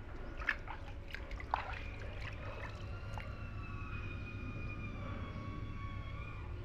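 Bare feet splashing through shallow water on a flooded concrete roof slab, with a few sharp splashes or knocks in the first two seconds. Behind them are a steady low rumble and a long, high tone that slowly rises and falls.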